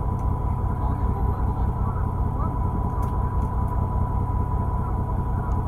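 Fishing boat's engine idling at a steady low drone, with a thin steady whine above it.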